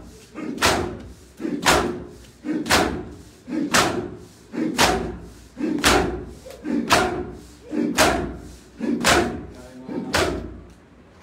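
A crowd of mourners beating their chests in unison with both hands (do dasti matam): loud, sharp slaps about once a second, ten in a row, stopping shortly before the end.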